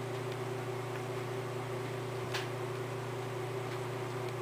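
Steady low hum over a faint hiss, with one faint short click a little over two seconds in.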